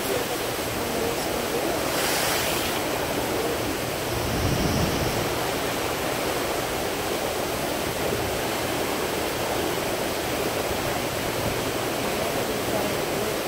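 Steady rush of sea water and wind from the deck of a cruise ship under way, with a brief hiss about two seconds in.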